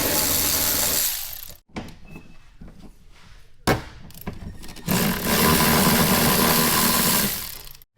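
Cordless power driver running in two bursts of a couple of seconds each, backing out the seat's mounting bolts, with a sharp knock between the bursts.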